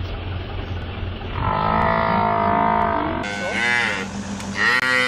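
African buffalo calf bawling in distress, the cry of a calf attacked by lions. There are three drawn-out calls: a long bawl starting about a second and a half in, a short one, then another long one near the end.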